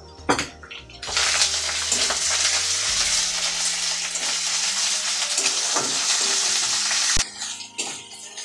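Ginger-cumin paste hitting hot oil in a steel karai and frying with the onion-garlic masala: a clink of the metal spatula, then a loud sizzle that starts about a second in and cuts off suddenly about seven seconds in, followed by a few spatula scrapes and taps on the pan as it is stirred.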